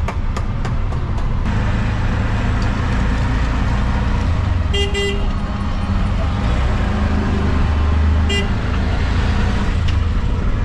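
Auto-rickshaw engine running with a steady low rumble as it rides through traffic. A horn gives a quick double toot about halfway through and one more short toot a few seconds later.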